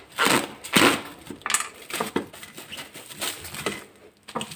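Plastic food wrap crinkling and rustling as it is pressed over the mouth of a jar packed with salted lemons to seal out air. A few strong crinkles come in the first second and a half, then lighter rustles and clicks.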